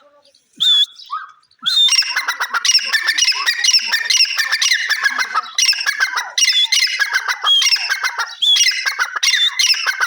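Francolins calling: a few short separate calls, then from about two seconds in a dense, unbroken run of harsh, rapidly repeated calls.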